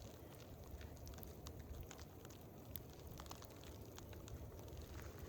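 Faint outdoor ambience: a low, steady rumble with scattered faint ticks.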